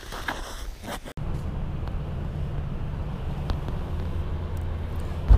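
Pickup truck engine idling with a steady low hum, starting suddenly about a second in.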